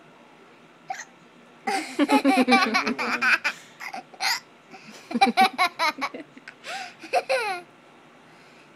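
A child with the hiccups laughing in repeated bursts: a long fit of giggling starting about two seconds in and a second one around five seconds in.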